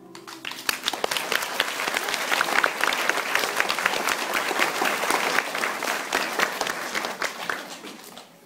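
Audience applause: many people clapping, starting about half a second in, holding steady and fading away near the end.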